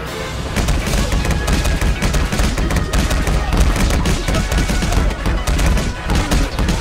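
Film soundtrack of heavy rain pouring down, a dense crackling patter over a deep rumble, with a dramatic score underneath as two men scuffle on wet ground.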